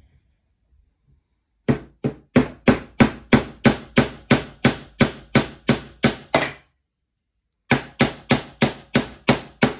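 A small hammer tapping a steel track pin down through model railway track into the baseboard: about fifteen sharp, even taps at roughly three a second, a pause of about a second, then about seven more.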